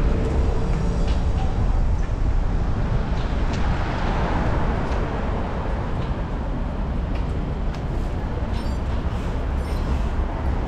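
Wind rushing over the camera microphone of a moving bicycle, mixed with steady city traffic noise; a vehicle swells past about four seconds in.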